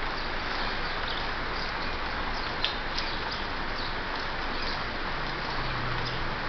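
Steady rain hiss, with scattered sharp drips of water falling close by.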